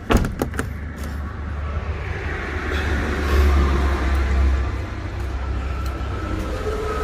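A sharp knock at the start, then the steady low rumble of a motor vehicle's engine running, swelling about halfway through and easing off again.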